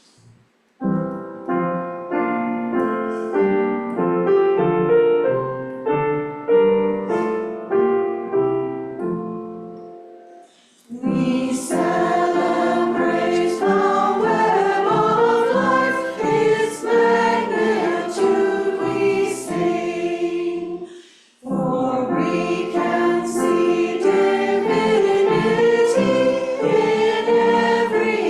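Piano plays a short introduction of separate, fading notes for about ten seconds. Then voices join in singing a song with the piano, break off briefly about two-thirds of the way through, and start again.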